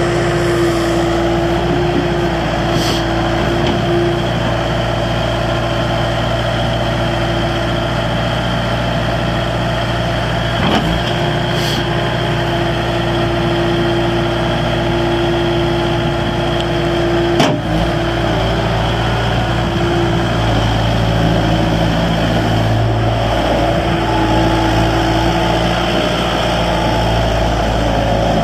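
2007 Bobcat S330 skid steer loader's diesel engine running steadily, with a steady tone over the engine note. There are two brief clunks, about 11 seconds in and a louder one about 17 seconds in.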